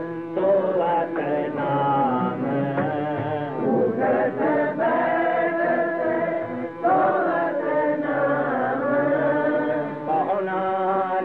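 Sikh devotional singing (kirtan): a voice chanting a Gurbani hymn line, with melodic instrumental accompaniment and a steady sustained tone underneath.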